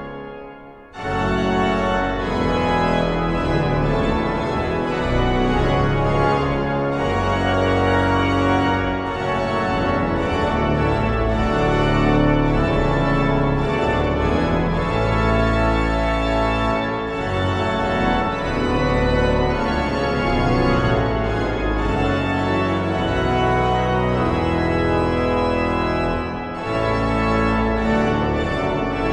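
Church pipe organ playing a full, sustained piece with deep bass notes under many held upper tones; the sound briefly falls away about a second in, then comes back at full strength.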